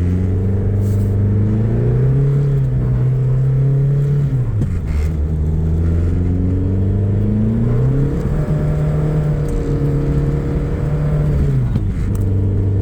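Engine of a 600-horsepower, E85-fuelled 1990 Eagle Talon pulling on light throttle, off boost on ice. Its pitch climbs, drops sharply for a gear change about four and a half seconds in, climbs again and holds, then falls near the end.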